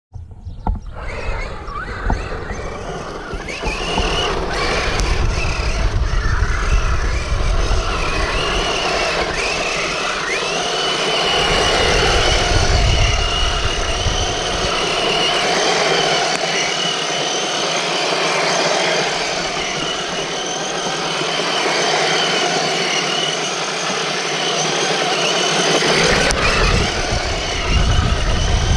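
Multirotor drone's motors and propellers running with a steady high whine that wavers slightly in pitch, and wind buffeting the microphone in a low rumble that drops away for about ten seconds in the second half.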